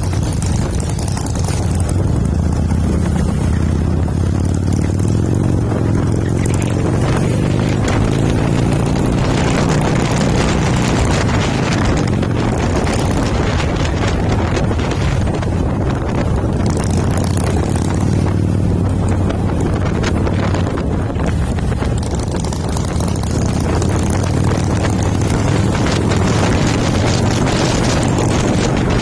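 Harley-Davidson V-twin motorcycle engine running at road speed, heard from the rider's seat with wind buffeting the microphone. The engine note rises and falls a couple of times.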